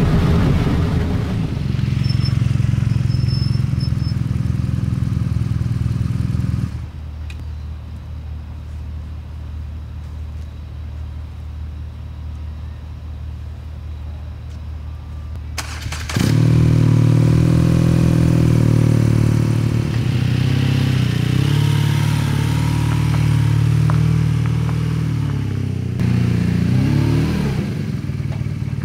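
BMW R nineT's boxer-twin engine running under way. About a third of the way in it cuts abruptly to a quieter low, steady hum for about ten seconds, then comes back loud. Near the end the engine note falls and rises a few times.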